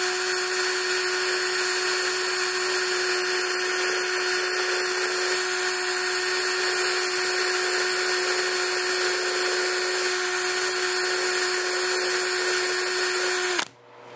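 Cordless drill running steadily, spinning a brass 4 mm HXT bullet connector while a flat file rasps against it to take off its ridge. The drill stops suddenly near the end.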